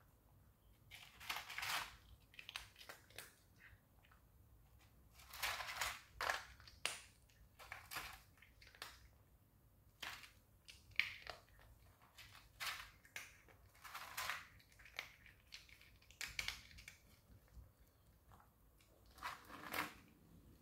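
A cat crunching dry kibble, in irregular bouts of sharp crunches and clicks with short pauses between them.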